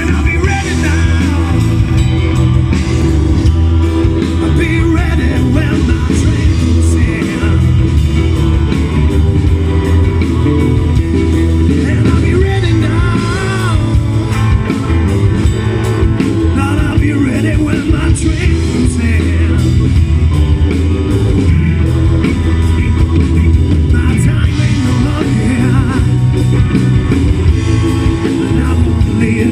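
A live rock band playing: electric guitar, bass guitar, drum kit and a Roland VK-8 organ keyboard, with a man singing lead through the vocal microphone. The heavy bass and drums run steady underneath, and the singing comes and goes over the band.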